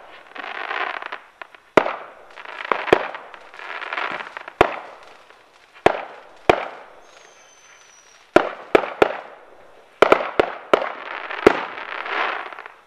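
Aerial fireworks bursting: about a dozen sharp bangs at uneven intervals, most followed by a sizzling crackle that dies away. A faint high whistle is heard about seven seconds in.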